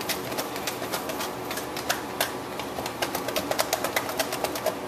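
Raw pork chops and dry seasoning shaken hard inside a closed takeout container: a fast, irregular clatter of knocks and rattles as the meat and lid thump against the box.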